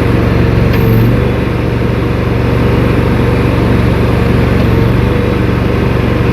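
Briggs & Stratton Vanguard gasoline engine of a JoyT5 JT5SSTM3 walk-behind skid steer running steadily at raised throttle while the hydraulic blade-tilt lever is worked. There is a short click and a brief change in the engine note about a second in.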